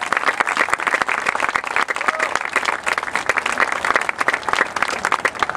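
Crowd applauding, a dense patter of many hands clapping that tapers off near the end.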